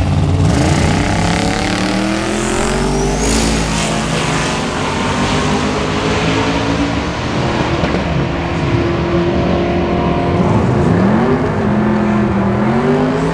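Drag cars launching off the start line and accelerating hard down the strip, the engine note climbing and dropping back several times as they shift up through the gears.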